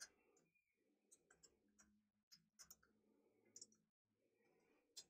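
Very faint computer keyboard key clicks at an irregular pace, a few isolated taps over a low hum.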